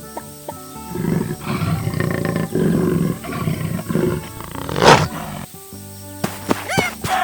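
Cartoon background music with a loud roar sound effect from about a second in that lasts some three seconds, then a sharp whoosh near five seconds and quick high chirps near the end.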